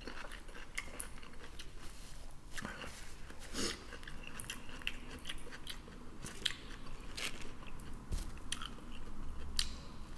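Close-miked eating sounds: a man chewing with his mouth, with irregular wet smacks and clicks. Near the end he bites into a crusty chunk of bread.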